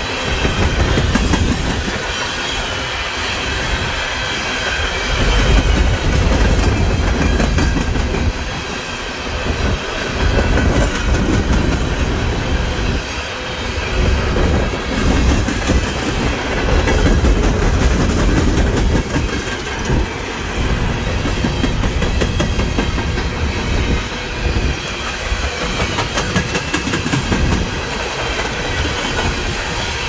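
Freight train of open-top coal cars rolling past at close range: a steady rumble of steel wheels on rail, with repeated clacks as the wheels cross the rail joints.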